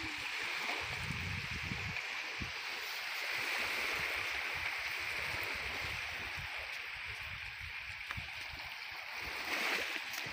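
Small waves washing steadily onto a sandy shore, with wind rumbling on the microphone now and then.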